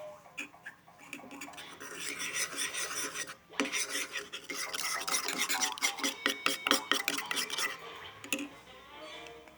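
Homemade slime being stirred and worked, giving a fast, irregular run of sticky clicks and scraping. It thickens about two seconds in and thins out near the end.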